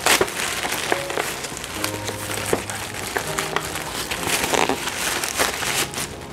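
Plastic mailer bag and bubble wrap crinkling and rustling as a parcel is torn open and unwrapped by hand, over background music.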